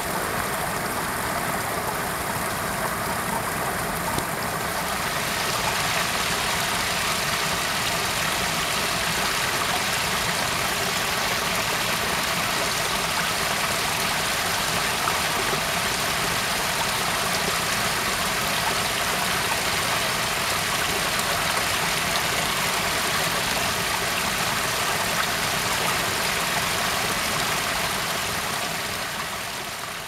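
Waterfall: falling water making a steady rushing noise with a deep rumble beneath, beginning to fade out near the end.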